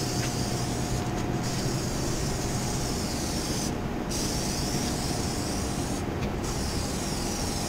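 Aerosol can of Plasti Dip spraying its first coat in long bursts, with three short pauses about a second in, near four seconds and around six seconds, over a steady low hum.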